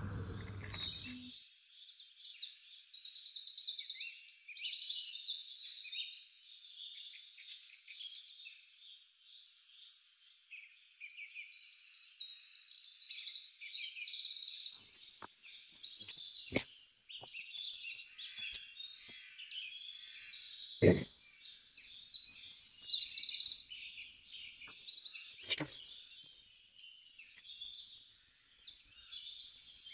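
Many small birds chirping continuously, with a few sharp clicks scattered through the second half, the loudest about two-thirds of the way through.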